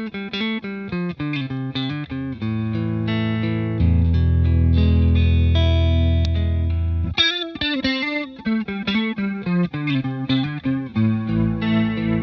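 Electric guitar, a Fender Stratocaster HSS, played through the TC Electronic JUNE-60 analog bucket-brigade chorus pedal, a Juno-60-style chorus. It plays runs of picked notes, holds a full chord with strong low notes from about 4 to 7 seconds in, then goes back to picked phrases.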